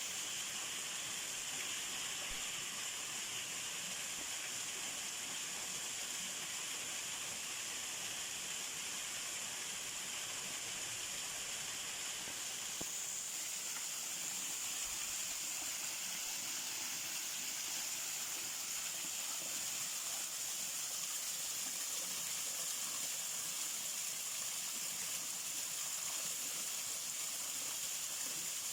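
Steady outdoor nature ambience: an even, high-pitched hiss with a constant high whine in it, changing slightly about halfway through.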